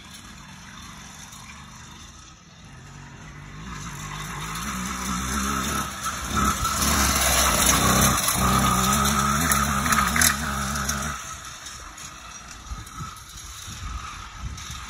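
80cc two-stroke bicycle engine running as the motorized bike is ridden around the track, pitch rising and falling with the throttle. It grows louder as the bike comes closer, is loudest in the middle, and fades as it moves away near the end.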